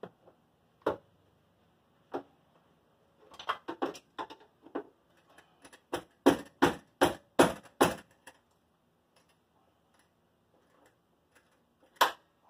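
Sharp knocks and taps on car body sheet metal: a few scattered ones, then a fast run of about six, roughly three a second, a little past the middle, and a single loud one near the end.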